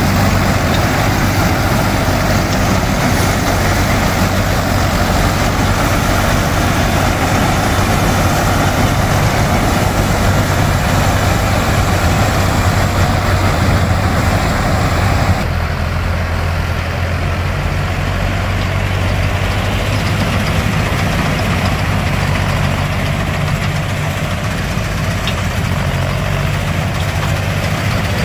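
John Deere 5310 tractor's diesel engine running steadily while it powers a tractor-mounted combine harvester cutting paddy. About halfway through, the sound abruptly becomes duller and slightly quieter.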